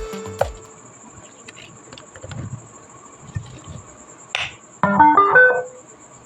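A homemade Bluetooth amplifier board plays a short electronic chime of stepped notes through its speaker about five seconds in, shortly after a click. A faint steady high-pitched electronic whine sits under the quiet stretch.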